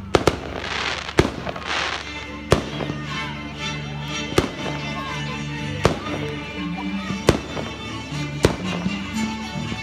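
Aerial firework shells bursting in the sky: about eight sharp bangs, one every second or so. Music plays underneath from a couple of seconds in.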